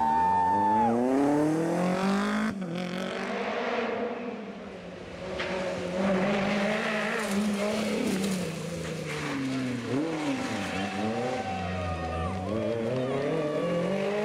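Renault Clio rally car engine revving hard, its note climbing steeply under acceleration, dropping away for a moment and climbing again as the car lifts, changes gear and accelerates on. A quieter spell comes a few seconds in, and the pitch falls sharply about two-thirds of the way through before rising again near the end.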